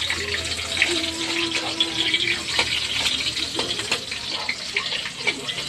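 Chicken pieces and garlic sizzling and crackling in a hot wok, with a utensil scraping and knocking against the pan.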